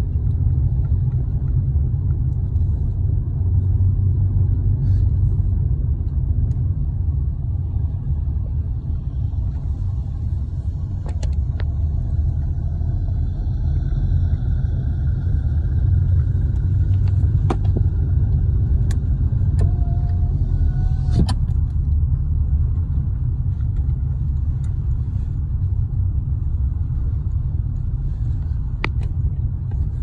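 Steady low road-and-engine rumble of a moving car, heard from inside the cabin, with a few brief clicks.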